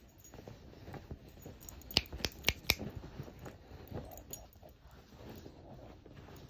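Small dog digging and nosing at bedcovers, the fabric rustling, with a quick run of four sharp clicks about two seconds in.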